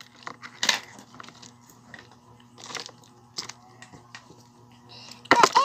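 Plastic candy wrappers crinkling and rustling in a few short, scattered bursts as the candies are handled.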